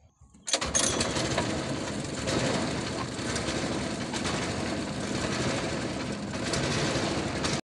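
Small boat engine running steadily, beginning abruptly about half a second in.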